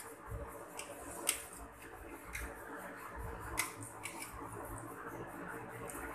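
Kitchen knife scoring deep cuts into a raw whole chicken on a steel plate: a handful of sharp, irregular clicks and light scrapes as the blade meets the metal, over a low steady hum.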